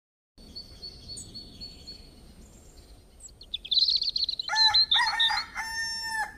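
Small birds chirping faintly, growing busier about three and a half seconds in, then a rooster crowing once near the end in one long call of nearly two seconds.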